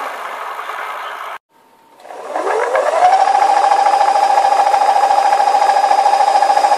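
Electric scooter's 24V 350W belt-drive motor running. After a short break it spins up, its whine rising in pitch over about a second, then runs steadily at full speed with a rattle as it drives the wheel through the belt.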